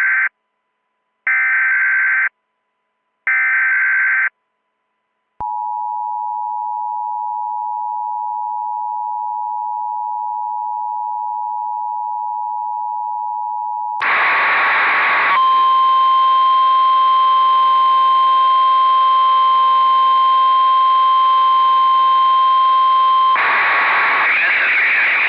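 An Emergency Alert System activation: the last short screeching SAME header data bursts, then the steady two-tone EAS attention signal for about eight and a half seconds. It cuts into radio static that carries a single steady tone for about eight seconds before the static runs on alone.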